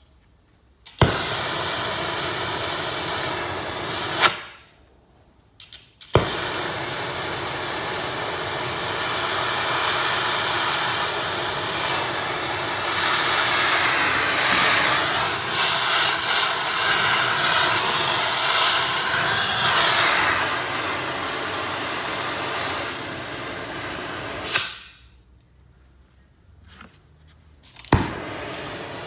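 Oxy-acetylene torch with a brazing tip burning with a loud, steady hiss while heating a cast iron exhaust manifold. It cuts out twice and each time starts again with a sharp pop.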